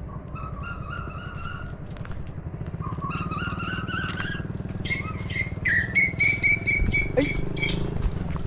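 Motorcycle engine idling steadily, with birds calling over it in runs of short repeated chirps. A higher, quicker run of notes comes in about halfway through.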